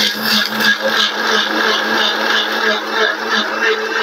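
Electric countertop blender running steadily, grinding turmeric and raw peanuts with water into a paste, with a light rattle repeating about three times a second.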